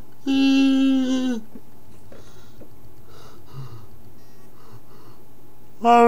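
A boy's voice holding a loud, steady sung note for about a second, then a few seconds of quiet, then another held note starting near the end.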